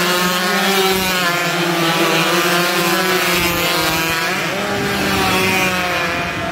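Several two-stroke racing motorcycle engines revving hard as the bikes ride through a corner, their pitches rising and falling against one another.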